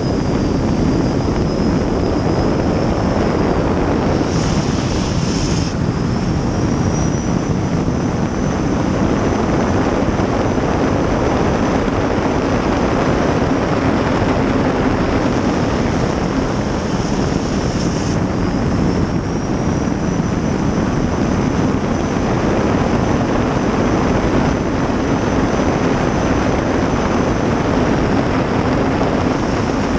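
Gas turbine of a 2000-plus horsepower river-racing jet boat running at speed, heard from the cockpit: a high turbine whine over a loud, steady rush of engine, wind and water. The whine drops briefly about 3 seconds in and again around 15 seconds, rising back each time as the throttle comes on.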